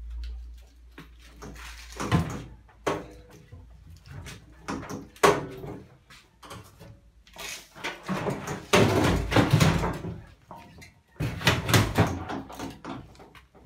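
A Whirlpool washing machine being heaved up and tipped over sideways by hand: a run of irregular scrapes, knocks and bumps from its cabinet, loudest about five seconds in and again between eight and ten seconds.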